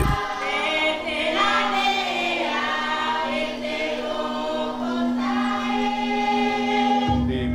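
A Polynesian church congregation singing a hymn together in several voice parts, over one low note held steadily. A low rumble comes in near the end.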